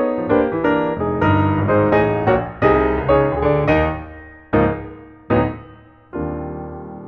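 Background music played on piano: a run of chords in quick succession, then a few single struck chords that ring and die away, ending on a held chord.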